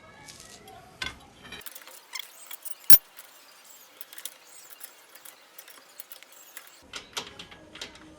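Scattered light clicks and metallic clinks of tools and parts being handled during brake work, with one sharp, loud click about three seconds in.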